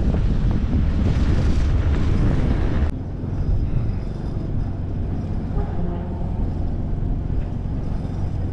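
Wind buffeting the microphone of a cyclist riding along a mountain road, a dense low rumble. About three seconds in it cuts off abruptly to a quieter, steady low rumble.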